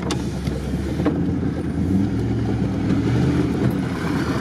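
Vehicle engine running steadily, heard from inside the cabin of a car driving slowly over rough off-road ground, its pitch shifting a little with the throttle.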